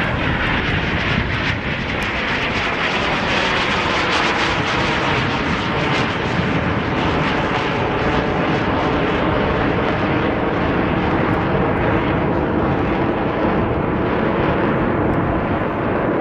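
A Canadair CT-114 Tutor jet trainer flying overhead: the steady rush of its single turbojet engine, with a faint whine over it.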